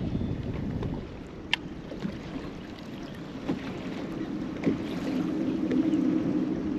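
Wind buffeting the microphone and water lapping against a bass boat's hull, with a few sharp clicks and a low hum that swells about two-thirds of the way in.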